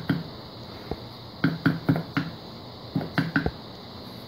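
Short, sharp strikes of a blacksmith's chisel on a hot steel leaf, cutting vein lines into it: one strike at the start, then two quick runs of about four strikes each, a second apart.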